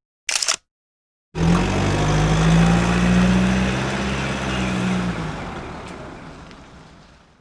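A motor vehicle engine running with a steady low hum. It starts abruptly and fades away over the last few seconds, after a brief separate sound near the start.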